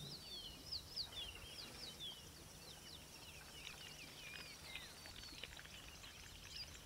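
Faint birdsong: several birds calling over one another in quick sliding notes, over a steady low hum.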